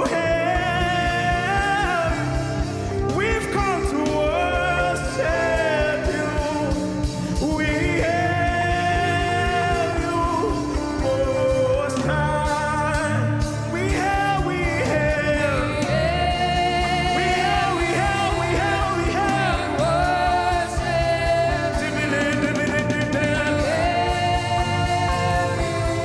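Live gospel worship music: a lead singer's voice gliding and ornamenting long lines over sustained keyboard chords and a steady drum pattern.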